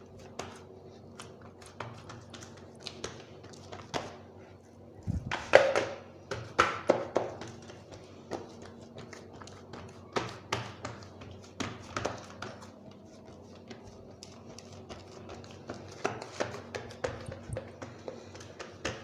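Pizza dough being rolled out on an oiled metal baking tray: irregular light taps and knocks against the tray, with a louder cluster of knocks about five to seven seconds in.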